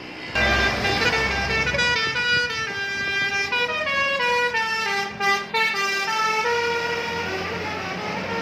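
An intercity coach sounds a telolet horn, a multi-note air horn that plays a quick tune of stepped notes almost without a break. Under it is the coach's engine rumble as it goes past.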